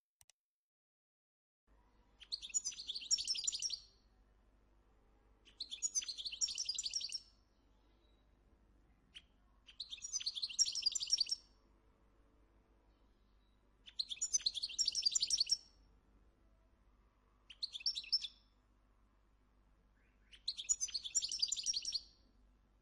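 Moroccan goldfinch (European goldfinch) singing: six short phrases of rapid high notes, each a second or two long, repeating about every four seconds and starting about two seconds in.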